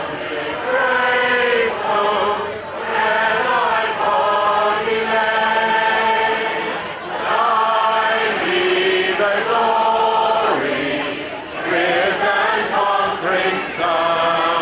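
A large crowd singing a hymn together, many voices holding long notes line by line, with short breaks between the lines.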